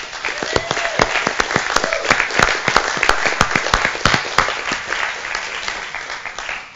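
Audience applauding, dense clapping that dies down toward the end.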